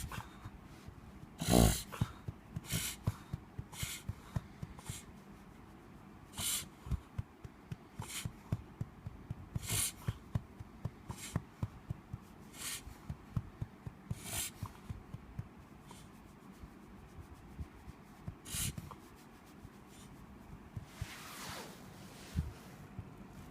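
An animal wheezing and snorting as it struggles for air, with short, sharp, noisy breaths at irregular intervals of about a second. A brief falling sound comes near the end.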